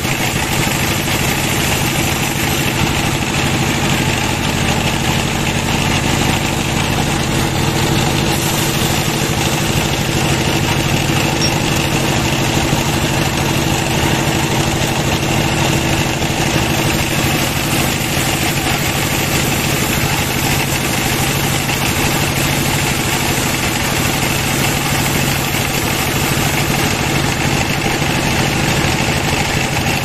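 Sawmill band saw running with a steady machine hum while its blade cuts a log into slabs.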